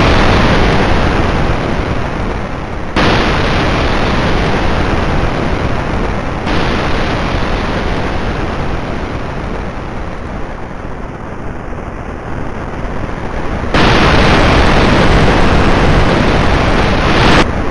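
Rocket engine firing: a loud, steady rushing noise that cuts in afresh about 3 and 6.5 seconds in and again near 14 seconds, and stops shortly before the end.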